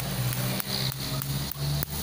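A hammer driving a nail into a wooden pole: several sharp blows about half a second apart, over a steady low hum.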